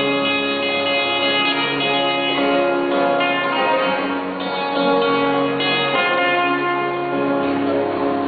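Live acoustic guitars playing a slow song, plucked and strummed, with notes changing about once a second over a held bass line.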